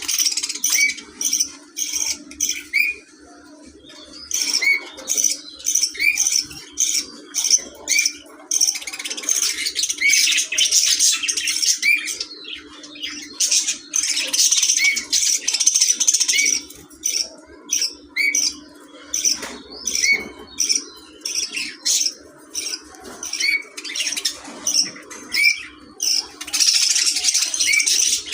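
Budgerigars chirping and chattering, a quick run of short high chirps with brief lulls, over a steady low hum.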